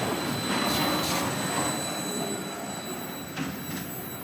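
Container freight train's wagons rolling away on the rails, the wheel and rail rumble fading steadily as it recedes, with a couple of clicks near the end.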